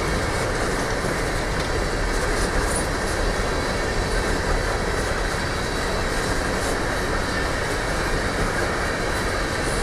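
Empty open-top coal cars of a freight train rolling past close by: a steady rumble and clatter of steel wheels on the rails.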